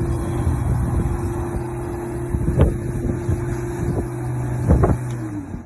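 A Certified 17-inch 12-amp corded electric lawnmower running with a steady motor hum, with a few sharp knocks. The pitch sags slightly just before the sound stops.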